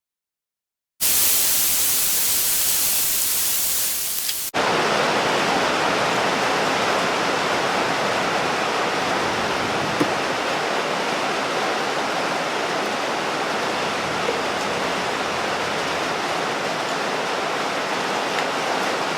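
Steady, even hiss of noise, brighter and thinner at first, then fuller and lower after an abrupt change about four and a half seconds in.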